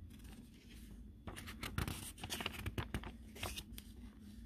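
A picture book's page being turned by hand: paper rustling and crinkling, with a run of small crackles and taps from about a second in until shortly before the end.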